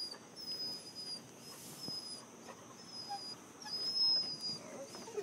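Young Siberian husky whimpering in a string of thin, high-pitched whines, each under a second long, while dazed after a seizure.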